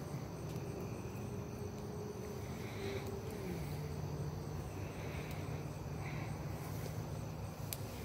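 Crickets chirping at night, over a steady low hum that drops in pitch about three and a half seconds in.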